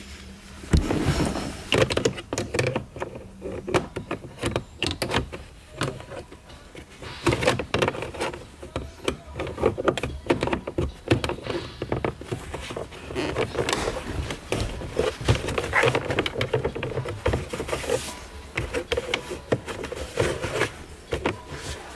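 Gloved hands working a rubber shifter boot and its plastic console trim down into place around a manual gear lever: irregular handling noises with many clicks and knocks.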